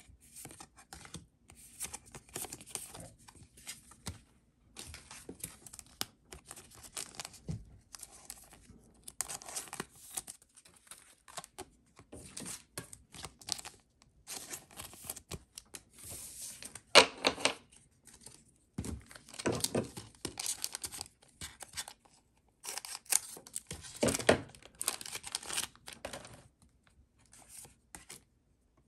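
A trading-card booster pack wrapper being torn open and crinkled by hand, with the cards inside rustled and slid through, in irregular bursts of ripping and crackling; one sharper, louder crackle about two-thirds of the way through.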